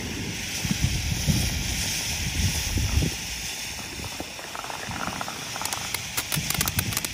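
Firework fountain (Freedom Fireworks Pyro Fan) burning with a steady hissing spray of sparks. A quick run of sharp crackles begins near the end.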